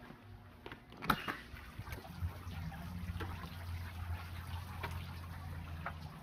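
Faint clicks and handling noise from a phone recording being carried outdoors, with a sharper click about a second in and a low steady hum from about two seconds in.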